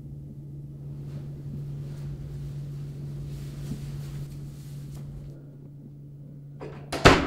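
Clothing rustling as a shirt is pulled off over the head, over a steady low hum. Near the end comes one sudden, loud knock.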